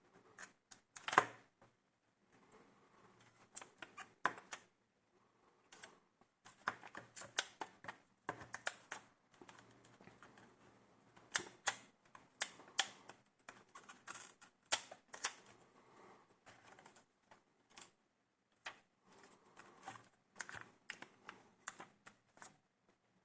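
Irregular sharp clicks and taps of plastic laptop parts being handled and pried, in uneven clusters with short pauses, the loudest about a second in.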